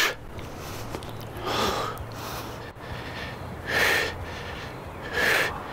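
A highliner's heavy breathing while balancing on the line: three deep, noisy breaths, one about every second and a half, over a faint low steady hum.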